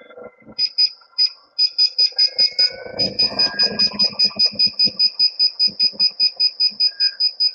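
Begode ET Max electric unicycle's power (PWM) alarm beeping: a few spaced high beeps that quicken, and from about three seconds in a fast steady train of about six beeps a second, the progressive warning that the wheel is at its power limit. The alarm, set for 80%, sounds only at about 100% PWM, with the free-spinning hub motor whining underneath.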